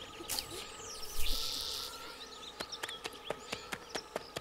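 Forest ambience of insects chirping and clicking steadily, with a short hissing swish about a second in.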